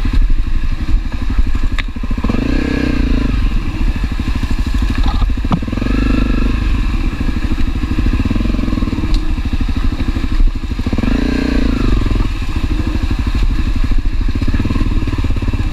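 Honda CRF250L's single-cylinder four-stroke engine running under load at low trail speed, the revs swelling and dropping a few times as the throttle is worked. A few sharp knocks cut in over it.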